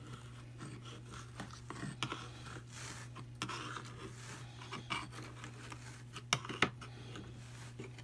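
Irregular scratching and rasping as a hand tool is dragged through wool on the fine carding cloth of a Brother drum carder's large drum, with two sharper clicks about three-quarters of the way in.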